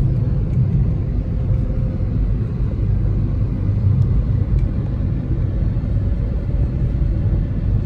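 Car road noise heard from inside the cabin: a steady low rumble of engine and tyres while driving.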